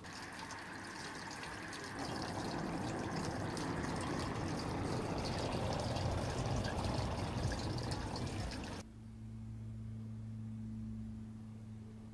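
Small fountain splashing into a garden pond, a steady rush of water that gets louder about two seconds in. It cuts off abruptly after about nine seconds, leaving a quieter steady low hum.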